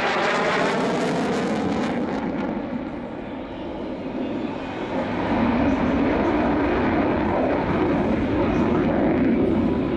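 F-16 fighter jet flying a tight turn, its engine running at high power in afterburner. The jet noise dips about three seconds in and swells again about five seconds in.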